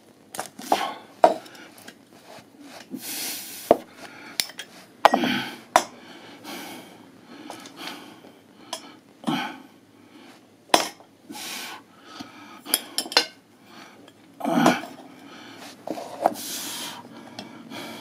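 Thin green-coated metal tubes knocking and clinking against each other and the floor as they are handled, with a few short scraping sounds in between.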